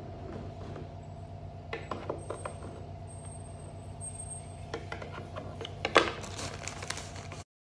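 Small metallic clicks and taps from a screwdriver and metal furniture hardware on a wooden shelf panel, in two scattered clusters with the sharpest click about six seconds in, over a steady low hum. The sound cuts off abruptly just before the end.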